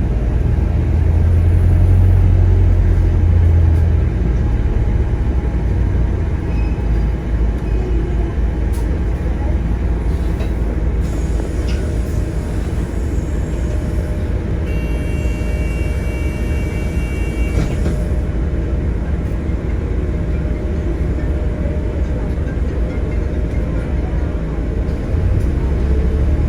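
Inside a moving bus: a steady, deep rumble of engine and road noise, heavier at the start and end. A high, steady tone sounds for about three seconds in the middle.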